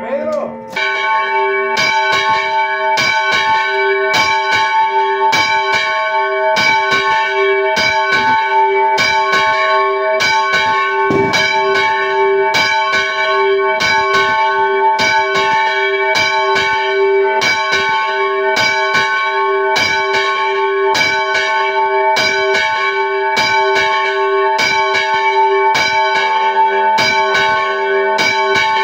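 Church bells rung close up in the belfry in a rapid festive peal (repique): strokes come about two to three a second, with several bells' tones ringing on over one another.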